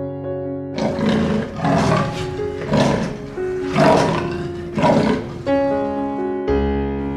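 An animal's rough, roar-like calls, five in a row about a second apart, over piano background music.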